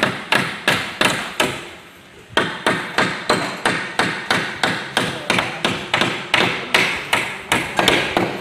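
Hammer blows on the wooden shipping crate being built around the engine, a steady run of about three strikes a second with a short pause about two seconds in.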